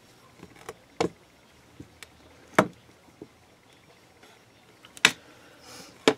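A clear acrylic roller knocking and tapping against a hard crafting work surface as it is set down and handled on a polymer clay log: a few sharp knocks, with fainter taps between.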